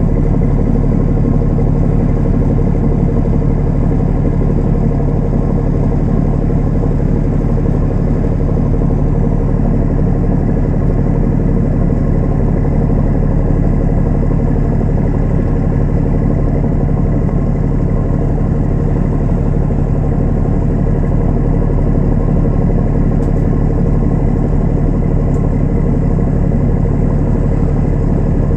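A ship's engine running steadily, a loud constant low drone that holds the same pitch.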